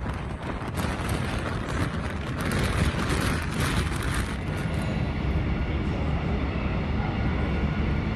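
Vehicle noise: a steady low rumble, with a hiss that swells about a second in and fades after about four seconds.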